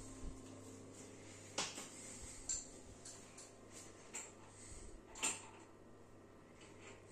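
Faint, scattered light clicks and knocks, a few in all, over a low steady hum that stops about five seconds in.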